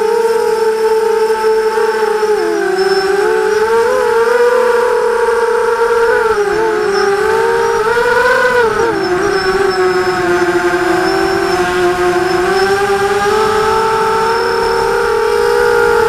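Vortex FPV racing quadcopter's brushless motors and propellers on a 4S battery, heard from its onboard camera: a loud steady whine that dips and rises in pitch several times as the throttle changes, settling lower about nine seconds in and climbing again near the end.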